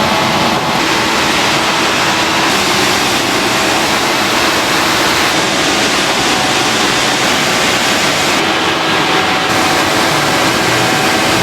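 Loud, steady factory machinery noise: a dense, unbroken hiss with a few faint steady hums under it.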